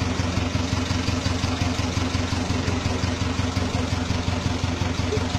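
An engine running steadily at idle: a constant low hum with a fast, even pulse.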